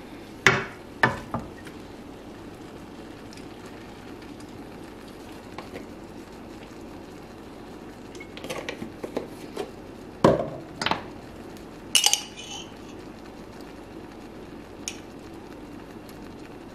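Kitchen clatter as seasoning is added to a frying pan of sauce: a handful of sharp clinks and knocks of a spoon and condiment bottles against the pan. There is one pair early, a few light ticks later on, then three louder knocks in quick succession, all over a faint steady background noise.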